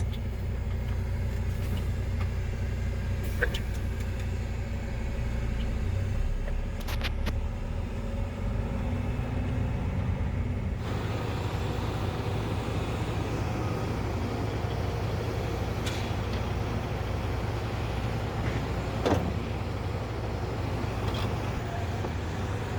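A loaded gravel truck's diesel engine running steadily, heard from inside the cab. About eleven seconds in the sound turns rougher and noisier, with a few faint knocks along the way.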